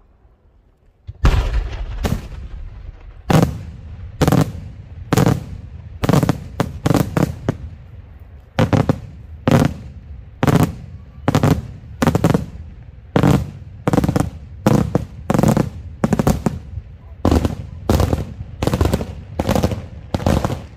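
Aerial fireworks shells bursting overhead in a daytime display: a long, rapid series of loud, sharp bangs, about one to two a second, starting about a second in.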